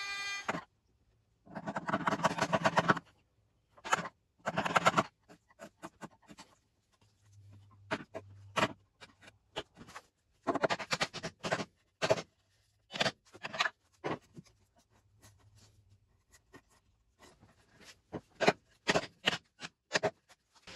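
Wooden mallet driving a chisel into a timber beam to cut a joint: two quick runs of rapid blows, then single and paired strikes spaced about half a second to a second apart. A compact router's whine cuts off just after the start.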